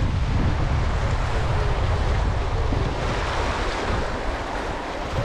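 Strong wind buffeting the microphone over a steady rush of river water, easing a little near the end.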